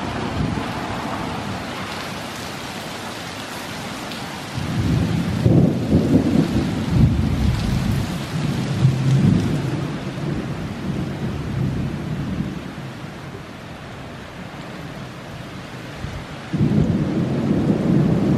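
Heavy rain hissing steadily, with thunder rolling twice: a long rumble starting about four and a half seconds in that lasts several seconds, and another starting near the end.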